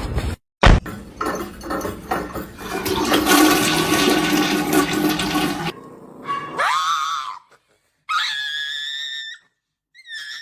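A sharp click, then a rush of water for about five seconds, then three short high whining tones: one rising, one held steady, and one that drops in steps.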